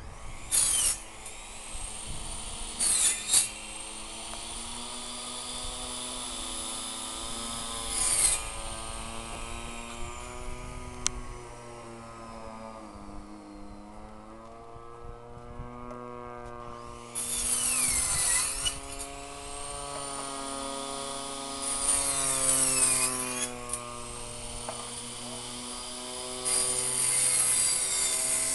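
A radio-controlled Extra model plane's DLE 20 single-cylinder two-stroke petrol engine running in flight, its pitch rising and falling repeatedly as it manoeuvres and passes, with several louder surges.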